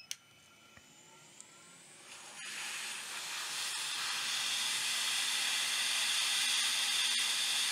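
A short electronic beep, then a hot air rework station blowing: its airflow hiss starts about two and a half seconds in, swells and holds steady as it heats a fluxed MOSFET on the board to desolder it.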